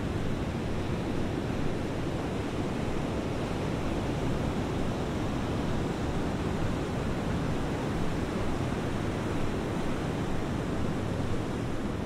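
Steady rush of wind and ocean surf at the beach, with wind buffeting the microphone.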